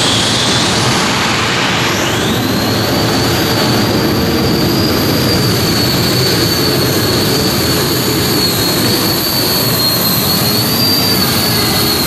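Modified-class pulling tractor running at full power through a pull: a loud, steady engine din with a high whine that climbs about two seconds in and then holds.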